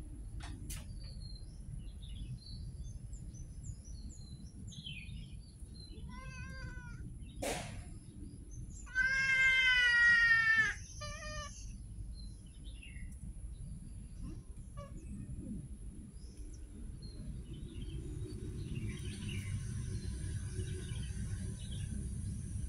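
Domestic cats meowing: a short meow about six seconds in, then a loud, long meow around nine seconds in, followed right after by a brief one.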